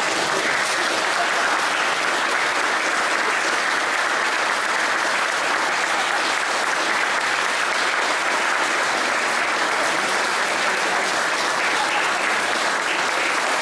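Audience applauding: sustained, steady clapping from a roomful of people.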